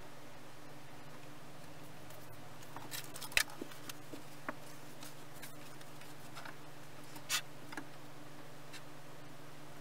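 A few light knocks and clicks of pine workpieces being handled and set down on a wooden workbench as glued layers are stacked, over a steady low hum; the sharpest knocks come about three and a half and seven seconds in.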